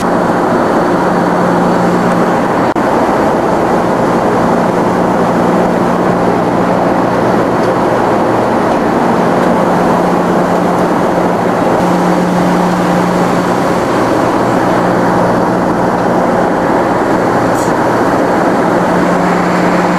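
Steady cabin noise inside a passenger airliner: an even rush of engine and airflow noise with a low steady hum underneath.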